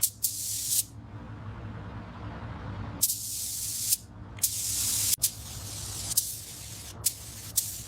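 Pressurised spray hissing on and off in short bursts, each under a second, then a few brief spurts near the end, over a low steady hum.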